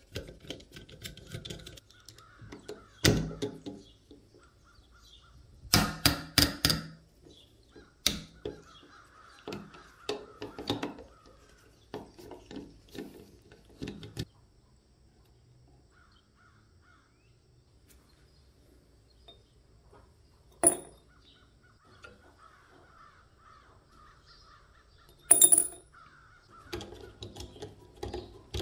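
Rusty steel screws being turned out of an old airgun's wooden grip with a screwdriver bit: they creak and squeak as they turn, broken by sharp metallic clicks and knocks of the tool now and then.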